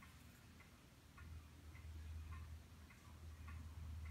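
Faint, even ticking, a little under two ticks a second, over a low steady hum.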